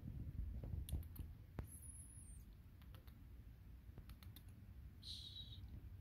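Cat crunching dry kibble, a scattered series of faint sharp crunches.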